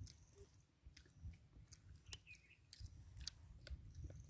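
Faint crunchy chewing close to the microphone: a person eating a crisp snack, heard as scattered small crackles and clicks.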